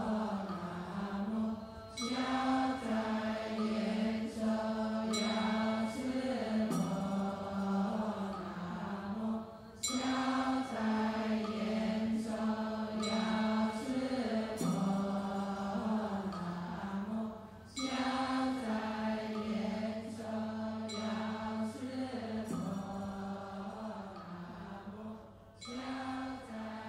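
Buddhist chanting: a voice sings a slow, melodic chant in phrases a few seconds long, with short breaths between them. A steady low hum joins underneath about two-thirds of the way through.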